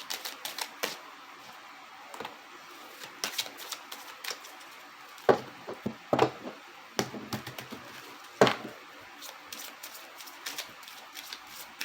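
A deck of oracle cards being shuffled and handled by hand: irregular card flicks and taps, with a few louder snaps in the middle.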